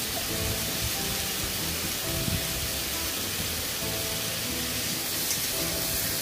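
Pumpkin and potato pieces frying in oil in a kadai: a steady sizzling hiss, with background music playing over it.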